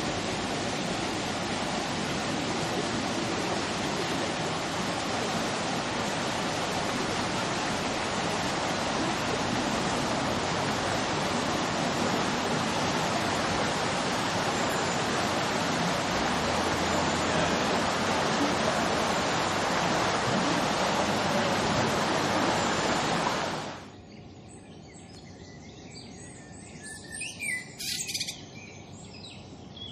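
Loud, steady rush of water at a canal lock. It cuts off about 24 seconds in, giving way to quieter outdoor sound with a few bird chirps near the end.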